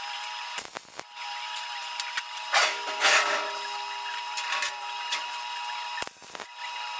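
Metal fabrication work on a steel sheet-metal cabinet: a steady hiss with a thin constant tone, broken by several sharp knocks and a louder rough, scraping noise about two and a half seconds in.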